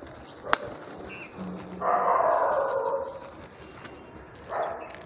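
A dog barking. The loudest call comes about two seconds in and a shorter one comes near the end, with a sharp click before them.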